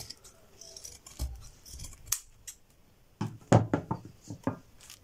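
Dressmaking shears cutting through woven herringbone fabric: a few soft snips of the blades, then a run of sharp metal clacks about three seconds in.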